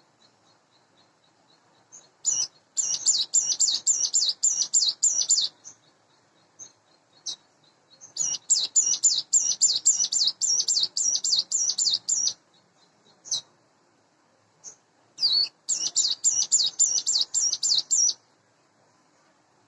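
Ciblek gunung, a small prinia, singing: three bursts of rapid, repeated high-pitched notes, each lasting about three to four seconds, with single short chirps in the pauses between them.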